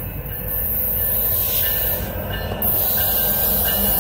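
Freight train led by Norfolk Southern and BNSF diesel locomotives approaching on the main line: a steady low rumble that grows louder, with a faint high squeal of wheels on the rails.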